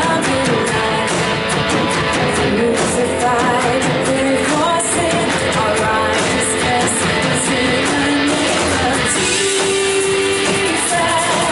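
Live worship band music: guitar-led band playing with voices singing a melody.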